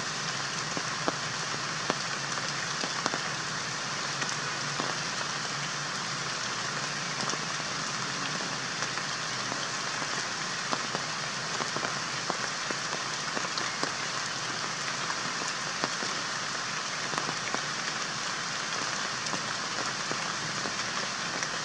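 A steady, even hiss with many small scattered ticks, the sound of rain-like patter.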